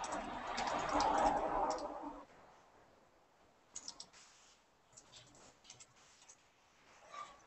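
Computer keyboard typing: scattered key clicks in small runs, after a louder muffled noise over the first two seconds.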